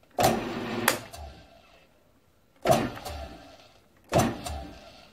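Grizzly G1007 mill-drill spindle bumped on three times, turning the fly cutter, each short run starting sharply and winding down over about a second.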